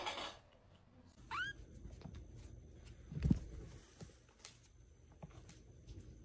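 A kitten gives one short, high, rising mew about a second in. A little later comes a dull thump, the loudest sound, with faint small knocks around it.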